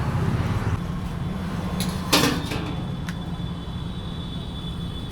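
Motorcycle ride: a steady low rumble of engine and road noise, with a short loud rush of noise about two seconds in and a click about a second later.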